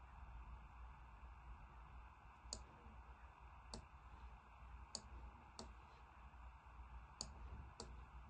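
Computer mouse clicking: six faint, sharp clicks at uneven intervals over a low steady hum.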